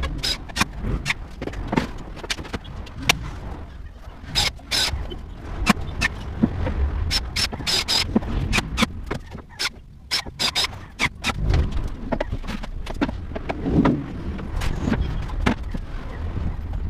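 Irregular knocks, clacks and scrapes of particleboard wardrobe panels and shelves being handled and fitted together, with a few louder bangs about four and a half seconds in.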